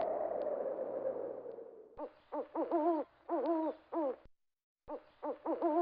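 Recorded wind sound effect, a whistling gust that falls in pitch and fades out over the first two seconds. Then a recorded owl hooting, a phrase of about six hoots with the longer ones wavering in pitch, played twice with a short silence between.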